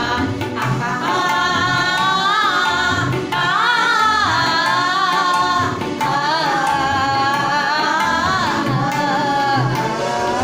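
A man and a woman singing a worship song together, long wavering sung notes over a steady percussion beat.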